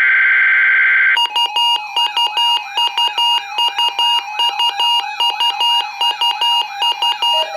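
About a second of the harsh digital warble of a SAME data burst from the weather radio test broadcast. It gives way to a weather radio receiver's electronic alert alarm, beeping rapidly in a repeating multi-tone pattern of about two and a half beeps a second: the receiver set off by the Required Weekly Test.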